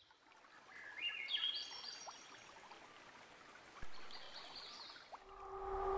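Faint intro sound bed of running water with a few high, stepped rising chirps. About five seconds in, a sustained ambient music chord like a singing bowl fades in and grows louder.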